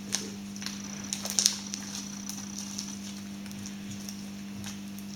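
Small irregular sticky clicks and pops of clear slime being stretched and squeezed by hand, loudest about a second and a half in, over a steady low hum.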